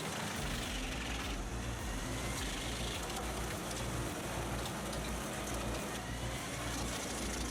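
Heavy wood-processing machine running steadily, its engine a continuous low rumble under mechanical noise.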